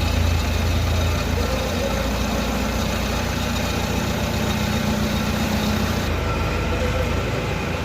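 Steady low machine hum under a constant noisy hiss; the highest part of the hiss drops away about six seconds in.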